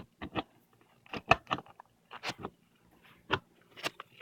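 Metal parts of a steering wheel quick-release hub clicking and knocking against each other as they are handled: a series of short, sharp clicks at uneven intervals.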